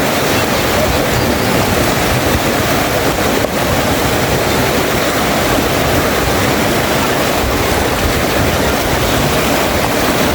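Steady, loud rush of flowing river water close to the microphone, an unbroken wash of noise.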